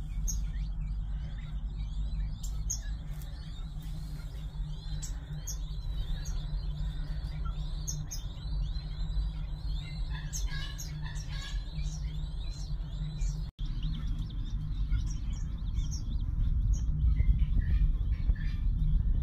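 King quail chicks peeping: many quick, thin, high arched peeps, with sharper higher chirps mixed in, over a steady low rumble. The sound drops out for an instant about two-thirds through, then the peeping goes on more sparsely.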